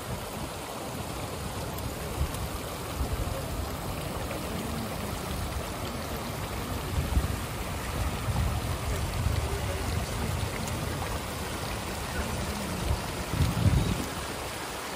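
Small mountain stream rushing over stones, heard close up as it is crossed. Under the water's steady wash runs an uneven low rumble that swells twice, about halfway through and near the end.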